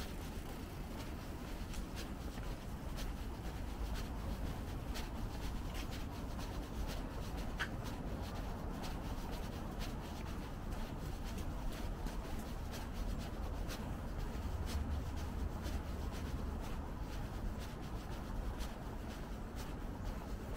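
A walker's footsteps on a paved path, light clicks at an irregular walking pace, over a steady low rumble of wind and handling noise on the microphone.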